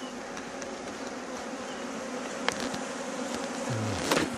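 Steady buzzing hum of a colony of native Irish honeybees crowding a lifted brood frame from an open hive, the bees agitated. A sharp click sounds about two and a half seconds in and a knock near the end.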